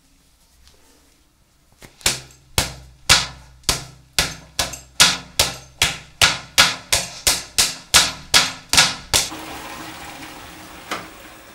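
A run of about eighteen sharp, hammer-like bangs, each ringing briefly, that speed up from about two a second to about three. A steady hiss follows near the end.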